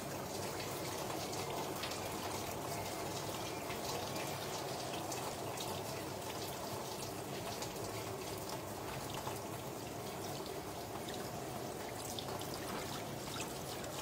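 Steady rushing background noise, even throughout, with a few faint scattered clicks.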